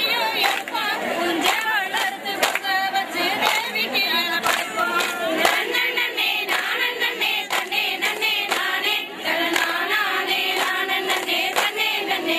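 Women's voices singing together in chorus, kept in time by a steady beat of hand claps.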